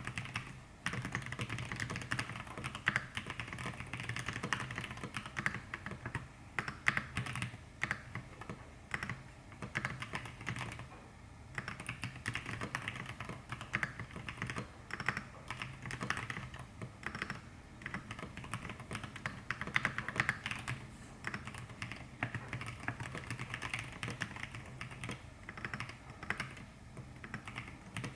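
Continuous typing on an E6-V2 mechanical keyboard with lubed Zealios 65g v2 tactile switches in an aluminium plate and thick KAT Alpha PBT keycaps: quick runs of keystrokes, with a short pause near the middle.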